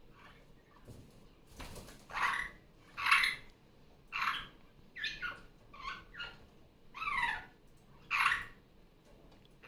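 Superb parrot (Barraband parakeet) calling: a run of short calls, roughly one a second, several sliding down in pitch.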